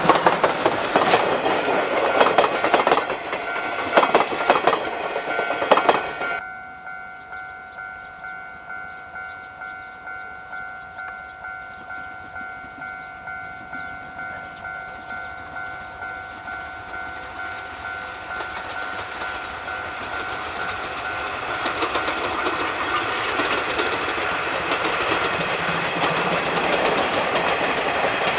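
A train hauled by a C12 tank steam locomotive, loud and close for the first six seconds, then cut off abruptly. It is replaced by a steady rhythmic beat of about two a second from the running train, which grows louder over the last several seconds as it approaches. A steady high tone runs throughout.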